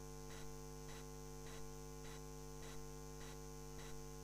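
Faint steady electrical mains hum with faint ticks about twice a second.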